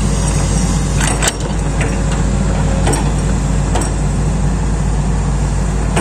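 Heavy-equipment diesel engine running steadily at an even, low hum, with a few short sharp clicks over it.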